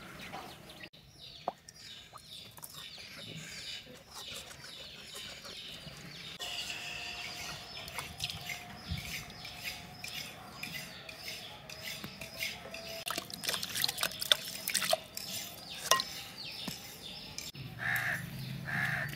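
Small birds chirping over light splashing and dripping of water, with a crow cawing twice near the end.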